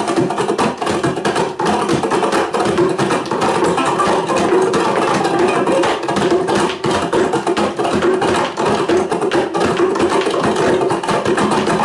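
Three ukuleles playing together in rapid, continuous strumming, an instrumental passage with no singing.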